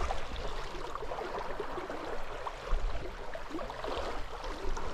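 Creek water running, a steady even rush, with a brief low rumble a little under three seconds in.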